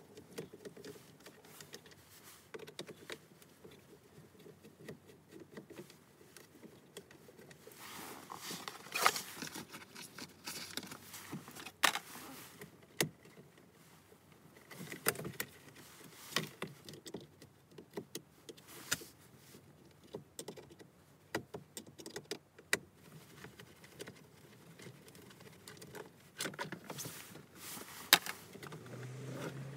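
Scattered clicks, taps and rattles of a screwdriver and plastic parts as the clock spring assembly on a Volkswagen Mk7 steering column is unscrewed and worked loose by hand. The clicks come in clusters, busiest in the middle stretch.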